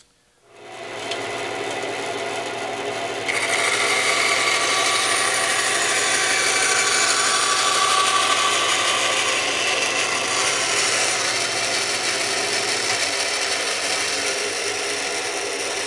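Delta band saw motor starting up about half a second in, then its blade cutting into a thin wooden board from about three seconds in, a steady loud hissing cut making a straight-in relief cut. The low motor hum drops out near the end while the cutting noise goes on.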